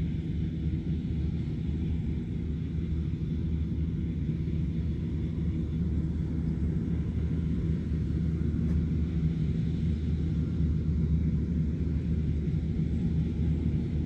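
Combine harvester running in the field: a steady low engine and machinery drone that grows slowly louder as the machine comes closer.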